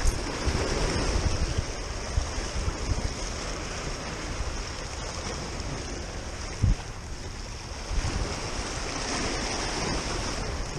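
Small sea waves washing and splashing against a rock breakwater, with wind buffeting the microphone. A single short thump about two-thirds of the way through.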